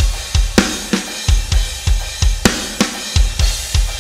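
Rock drum kit playing a groove on its own: kick drum, snare and cymbal hits in a repeating pattern.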